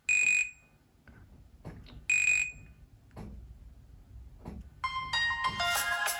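Built-in tones from a Nokia C7-00 smartphone's speaker: two short, high electronic beeps about two seconds apart, then about five seconds in a busier, many-note melodic ringtone starts playing.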